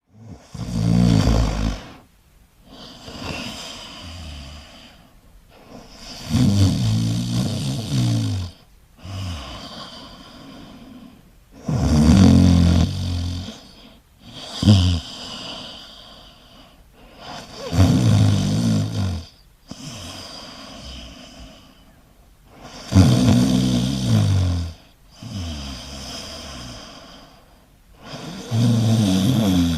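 A person snoring in a steady rhythm: six loud snores about five to six seconds apart, each followed by a quieter breath.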